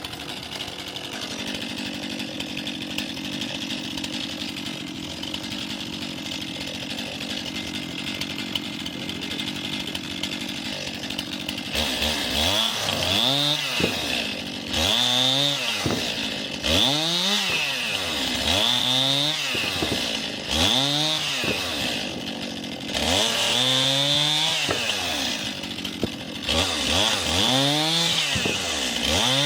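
A steady engine drone for about the first twelve seconds. Then a Stihl MS 261 two-stroke chainsaw revs up and down over and over, about once every one to two seconds, as it cuts firewood.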